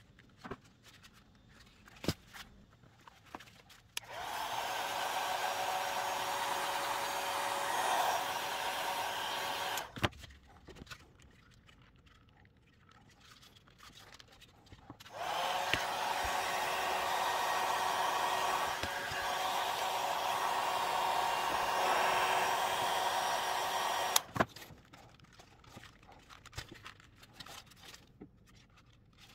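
Electric hot-air blower running steadily in two stretches, about six seconds and then about nine seconds, warming the glue that holds the air vents to a plastic dashboard fascia so they come loose. Light plastic clicks and taps of prying come before, between and after.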